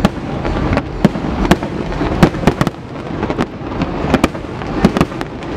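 Aerial firework shells bursting in quick, irregular succession: about a dozen sharp bangs over a continuous rumble and crackle.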